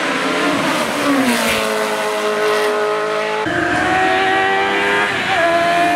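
Hill-climb race car engine at high revs as the car comes up the course. The pitch falls about a second in, then jumps up sharply at about three and a half seconds and again near five seconds.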